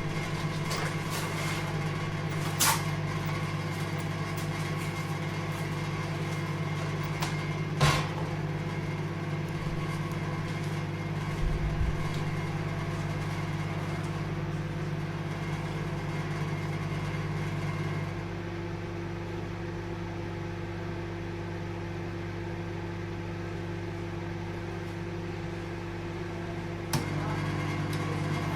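Microwave oven running with a steady hum and a few light clicks. About two-thirds of the way through the hum drops quieter and lower, then comes back with a click near the end.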